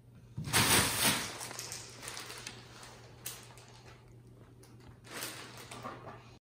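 Clear plastic bag crinkling and rustling as a cat climbs into it and shifts about inside. The loudest crackle comes about half a second in, with softer rustles after it and another bout near the end.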